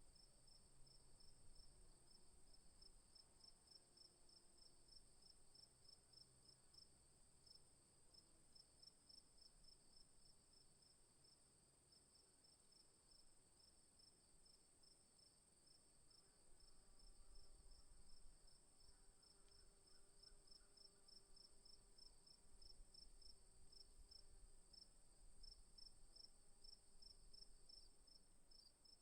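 Faint insect chirping: a steady high trill with a quicker pulsed chirp repeating a few times a second.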